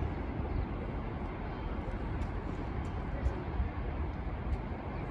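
Steady hum of distant city traffic, an even noise with no single vehicle standing out.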